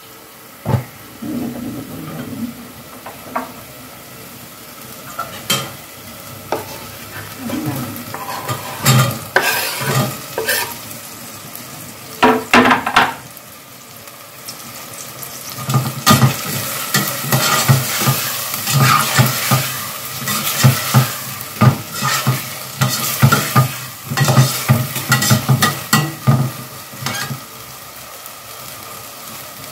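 A perforated steel skimmer scraping and stirring against the bottom of a stainless steel pot while masala and onions fry and sizzle in oil. A louder burst comes about twelve seconds in as chopped onions go into the pot, and rapid, continuous scraping strokes follow from about sixteen seconds on.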